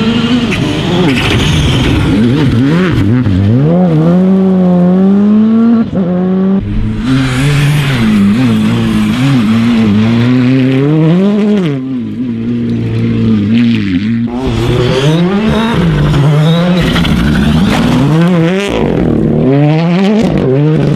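Rally cars on a gravel stage, one after another: turbocharged four-cylinder engines, among them a Škoda Fabia R5 and a Hyundai i20 R5, revving hard, the pitch rising and falling again and again through gear changes and lifts, with gravel thrown up by the tyres. The sound breaks off and jumps to another car several times.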